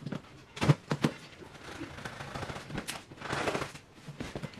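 Packing tape on a cardboard carton being slit with a box cutter: sharp snapping cracks about a second in, then a longer scratchy rip near the three-second mark.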